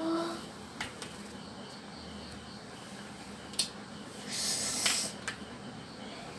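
A cracked-screen smartphone handled on a hard floor: a few light clicks and knocks, with a short rustling hiss about four and a half seconds in.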